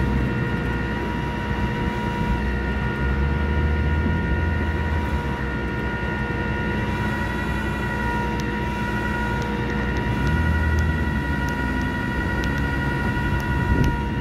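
Ford Super Duty service pickup's engine running under load with a steady high whine as the truck creeps out of soft, sunken lawn. The low engine note swells a few seconds in and again about ten seconds in.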